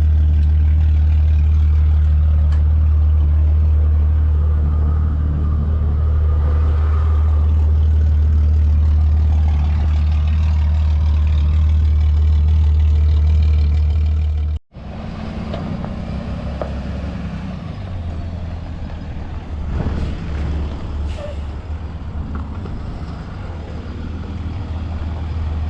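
A truck engine running steadily and loud, close by. After an abrupt cut about fifteen seconds in, quieter and more uneven engine noise goes on, with a few scattered knocks.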